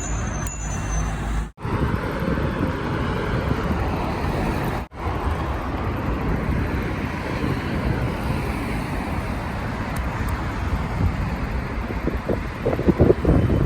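Strong wind blowing on the microphone over steady road traffic noise, cut off abruptly twice, with a few louder gusts near the end.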